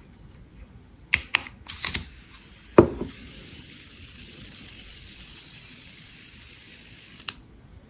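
A run of sharp mechanical clicks, then a steady hiss lasting about four seconds that stops with another click.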